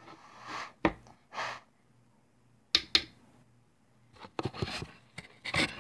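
Two soft puffs of breath blown onto an eyeshadow brush to knock off excess powder. Sharp clicks and taps follow, with a quick cluster of them near the end.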